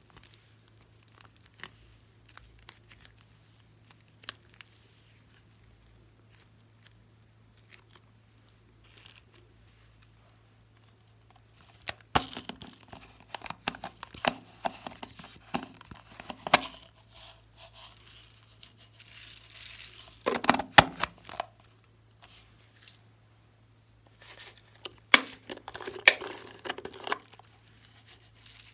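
Slime being worked by hand and peeled out of plastic containers: faint sticky clicks at first, then, from about twelve seconds in, louder crackling and squelching.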